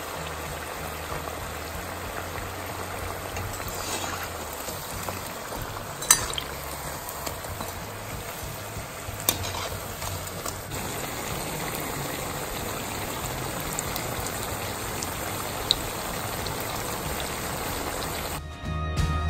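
Breadcrumbed cauliflower pieces deep-frying in hot sunflower oil: a steady sizzling hiss, with a metal slotted spoon clinking against the pan a few times. Background music plays underneath and gets louder near the end.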